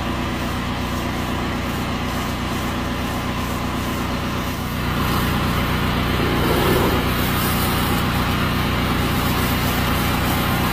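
Steam pressure washer's engine running steadily, with a hiss of spray that grows louder about five seconds in.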